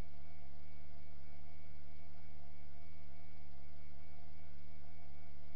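A steady, unchanging low hum with a few faint steady high tones above it.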